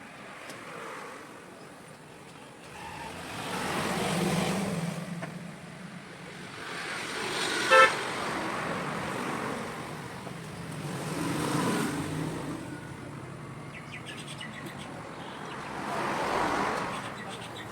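Motor vehicle sound that swells and fades four times, about every four seconds, like an engine revving up and settling. About eight seconds in, a horn gives one short toot, the loudest sound here.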